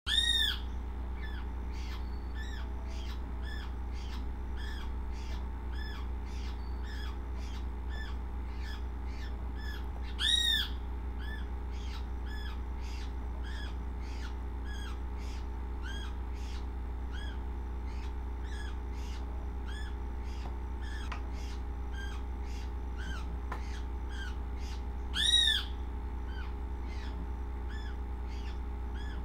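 Short, arched, bird-like chirps repeating evenly, roughly every 0.7 seconds. Three much louder chirps come near the start, about ten seconds in and about twenty-five seconds in, over a steady low hum.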